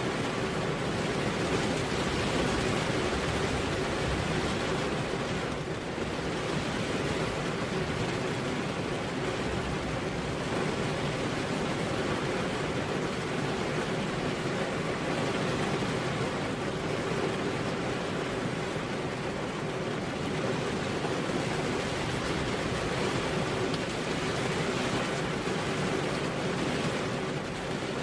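Heavy rain falling steadily on a road: an even, unbroken hiss.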